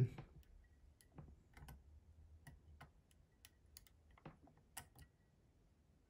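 Faint, irregular metallic clicks from a flag pick working inside a Lathams six-pin brass dimple-lock cylinder, as the core is levered back to counter-rotate and set an overset pin out of a false set. The clicks are scattered over about five seconds, the loudest near their end.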